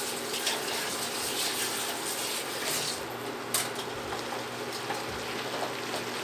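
Pork belly pieces sizzling steadily in a frying pan with soy-sauce marinade, with a few light clicks of wooden chopsticks turning the meat, the sharpest about three and a half seconds in.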